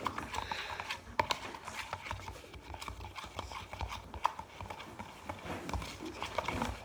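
A spoon stirring thick glue slime in a bowl, with irregular knocks and scrapes against the bowl. Contact solution has just gone in, so the mixture is starting to set into slime.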